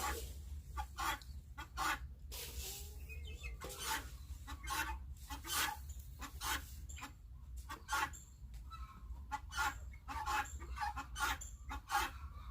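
Chickens clucking, short sharp calls coming a few times a second, over a low steady rumble.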